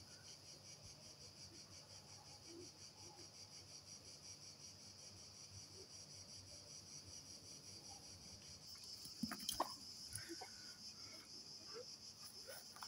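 Faint, steady high-pitched trilling of insects. A few short knocks stand out about nine to ten seconds in.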